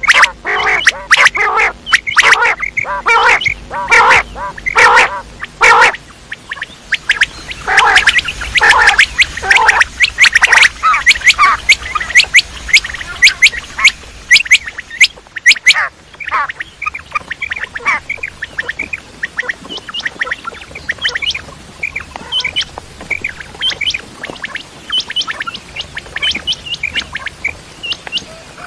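Quails calling: a quick run of repeated harsh calls, then a dense flurry of sharp chirps, thinning to fainter scattered chirps in the second half.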